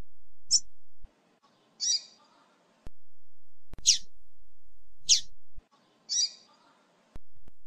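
Female double-collared seedeater (coleiro) giving short, high chip calls, five of them about a second apart, some sliding sharply down in pitch. This female call is played to a male coleiro to get him singing.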